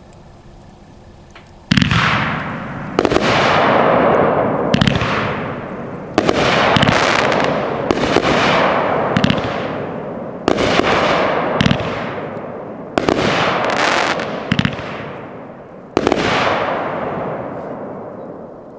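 A BOOMIN Bulldog 'Go Ye' 500 g, 18-shot consumer firework cake firing, starting about two seconds in. About a dozen sharp shots go off at uneven intervals, each trailing off in a long fading hiss.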